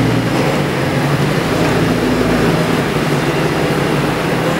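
Supercharged V8 engine of a 2006 Ford Mustang running steadily at low revs while the car creeps forward, with no revving.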